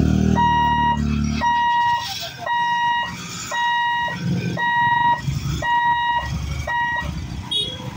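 Level-crossing boom-barrier warning buzzer sounding an electronic beep about once a second while the barrier lifts, stopping about seven seconds in. Motorcycle engines rev underneath as traffic starts across the tracks.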